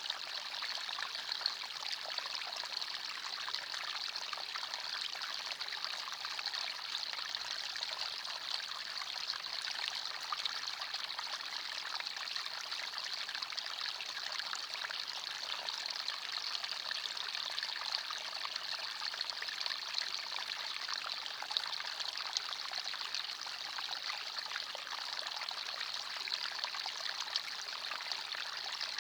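Forest stream flowing over stones: a steady babbling and trickling of water, with small splashes flickering through it.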